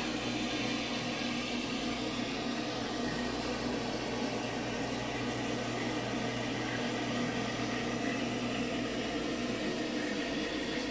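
Steady low hum with an even hiss, from a running machine such as an appliance or fan.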